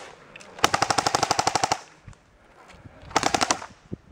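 Airsoft electric gun (AEG) firing two full-auto bursts, each a rapid, even rattle of shots. The first, about half a second in, lasts about a second; the second, about three seconds in, is shorter.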